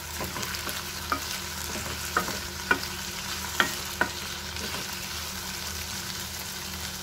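Diced potatoes, carrots and green peas frying in oil in a kadai, stirred with a spatula: a steady sizzle with a handful of sharp clicks of the spatula against the pan in the first few seconds.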